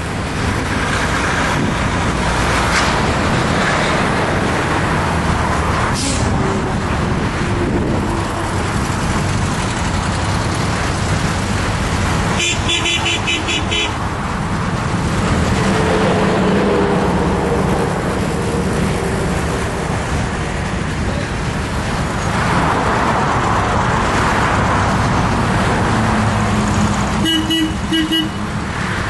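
Car driving along a road with steady engine and road noise, and a car horn tooting in short pulses twice, around the middle and again near the end.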